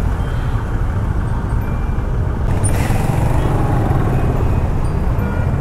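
Motorcycle engine running at low speed while creeping through stop-and-go traffic, among the rumble of other vehicles' engines. A short hiss comes about halfway through.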